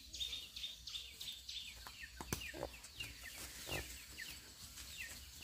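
Birds chirping over and over in short, falling chirps, with a sharp click a little under halfway through.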